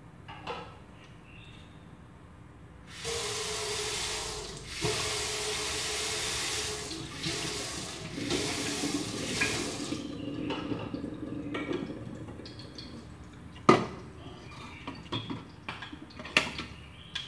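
Kitchen tap running for about seven seconds, drawing water to cook rice. It is followed by a sharp knock and light clatter of kitchenware.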